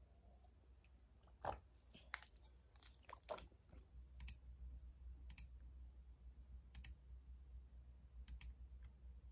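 Near silence with a faint low hum, broken by about seven light clicks and taps spaced irregularly, roughly a second apart.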